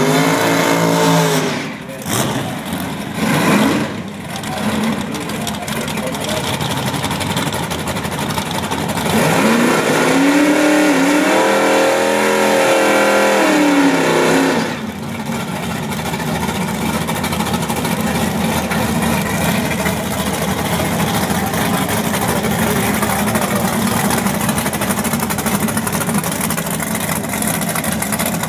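Engine revving in short blips in the first few seconds, then a 1962 Chevy Impala's 409 V8 revved hard during a burnout for about six seconds, the revs rising and falling. It then idles steadily as the car rolls up to the line.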